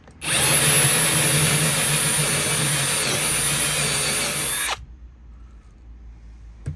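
Power drill boring a cable hole through a double-layer boat panel, running steadily with a high motor whine for about four and a half seconds, then stopping suddenly once it has cut through the first layer.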